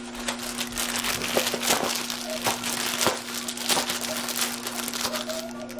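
Plastic poly mailer bag crinkling as it is handled and pulled open by hand: a quick run of short, sharp crackles.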